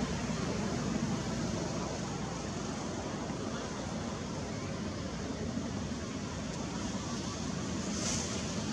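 Steady outdoor background noise, a low rumble with a hiss over it. No distinct animal calls stand out.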